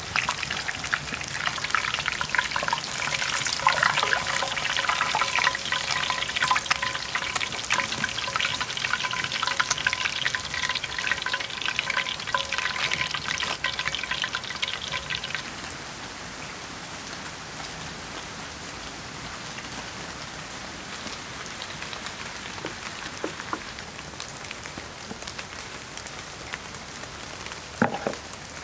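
Breaded veal chop deep-frying in hot peanut oil: a dense, busy crackle and sizzle that cuts off suddenly about halfway through. After that comes a quieter, steady patter of rain, with one sharp knock near the end.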